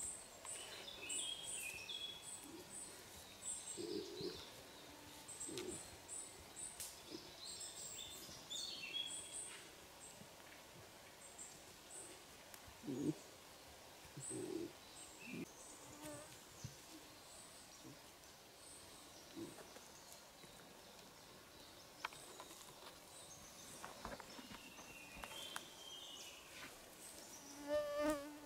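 Birds chirping repeatedly in short high calls through the first ten seconds or so, with a few brief low sounds scattered through. Near the end a fly buzzes close by.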